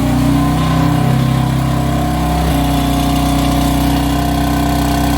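BMW F80 M3's twin-turbo inline-six idling steadily with a nasty rattle from the exhaust. The owner assumes worn exhaust flap actuator motors are the cause.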